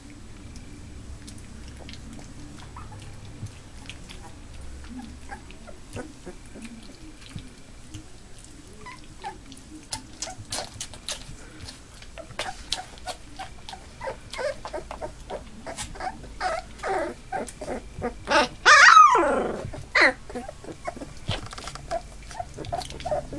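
Black Labrador puppies just under three weeks old whimpering and squeaking, the short high cries coming more often as it goes on. Late on, one puppy gives a loud cry that falls steeply in pitch, and a quick run of squeaks follows near the end.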